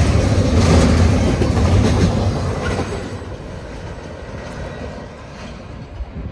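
Double-stack intermodal freight train's well cars rolling past close by on the rails. The noise is loud for the first few seconds, then falls away steadily as the end of the train passes and recedes down the track.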